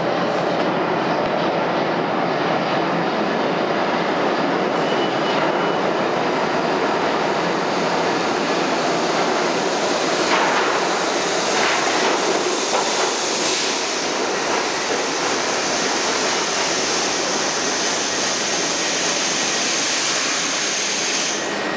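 R62A subway train pulling into an underground station and slowing to a stop, a steady rumble and rattle of wheels on rails. In the second half a high steady whine joins in and cuts off suddenly shortly before the end as the train comes to rest.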